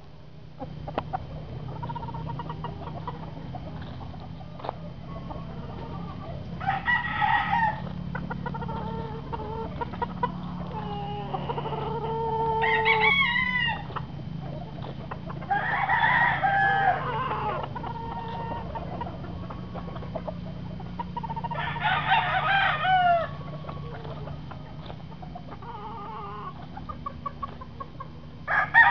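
Roosters crowing several times, each crow lasting one to two seconds, over a steady low hum.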